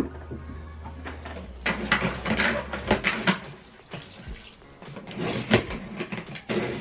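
Flat mop being worked up and down in its plastic wringer bucket: water splashing and sloshing with plastic knocks and clatters, over quiet background music.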